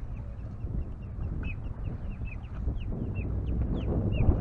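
Birds calling in many short, falling chirps, several a second, over a steady low rumble of wind and water that grows louder near the end.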